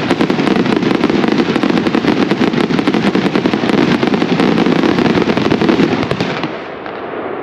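Spirit of 76 30-shot fireworks cake firing glittering comets to heavy hammer: a rapid, dense barrage of loud bangs and crackling over a rumbling roar. It dies away about six and a half seconds in.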